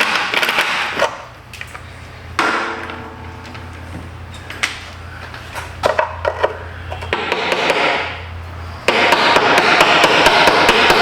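Hand tool knocking and tapping on metal, a run of sharp knocks that come much faster in the last two seconds, as a stuck, rusty fastener under the van is worked loose.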